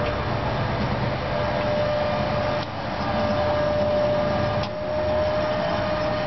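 Raymond 71-SL60TN battery-electric sideloader running, a steady whine over a rushing noise that drops briefly twice.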